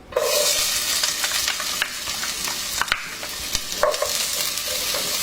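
Onions sizzling as they are sautéed in hot cooking oil in a pot. The sizzle starts abruptly and is stirred, with occasional scrapes and knocks of a utensil against the pot.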